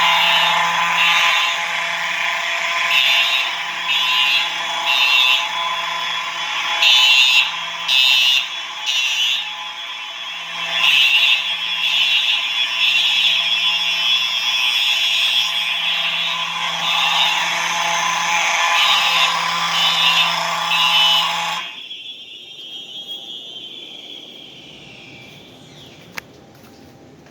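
Simplex horn strobes sounding together on a sync module set to code 3 (temporal pattern): a 4906-9128 TrueAlert ceiling horn strobe, a 4903-9242 electronic horn strobe and a 4903-9220 electromechanical horn strobe. The horns pulse in a repeating on-off rhythm over a steady low buzz, then cut off abruptly about 22 seconds in, leaving a faint tone that falls and fades.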